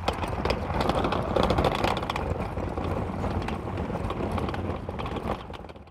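Wheeled 28-litre cooler rolling on its urethane wheels over grooved concrete: a steady, rattling rumble that fades near the end.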